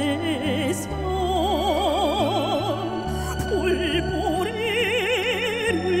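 A woman singing a slow Korean song into a microphone, holding long notes with a wide, wavering vibrato, over instrumental accompaniment with sustained low notes.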